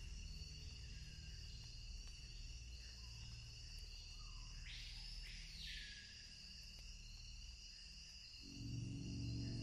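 Faint eerie electronic drone of steady high-pitched tones, with a brief swelling sweep about five seconds in and a low rumble that grows louder near the end.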